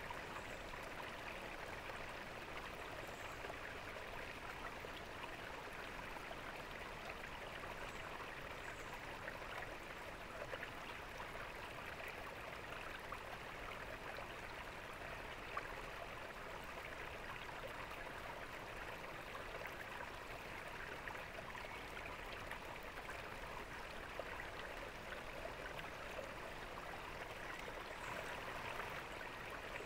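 Water from a garden fountain splashing and trickling steadily, an even rushing without pause.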